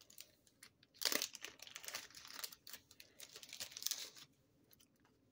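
Thin plastic card sleeve crinkling as a sticker card is slipped into it, a dense crackle from about a second in that stops a little after four seconds.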